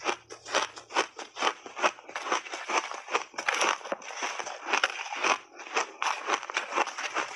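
Close-miked crunching of refrozen shaved ice with mixed berries being chewed: a continuous run of crisp crunches, about two or three a second.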